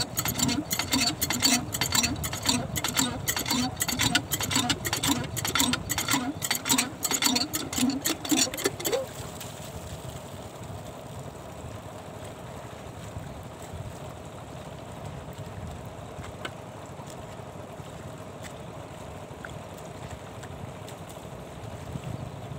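A hand-lever pump on an irrigation pump's vertical pipe being worked in even strokes, about two to three a second, ending with a short rising squeak about nine seconds in. After that only a faint steady hum remains.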